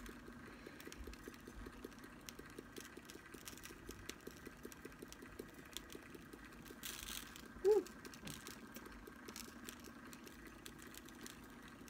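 Quick, light, even tapping of a finger on a small plastic bottle of chunky glitter as it is sprinkled onto a tumbler, over the low steady hum of a cup-turner motor. A brief rustle about seven seconds in and a short squeak just after.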